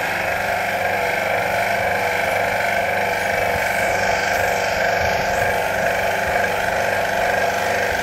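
Hydraulic power unit of a 200 mm hydraulic HDPE butt fusion welding machine running with a steady drone, its pump holding the system under pressure.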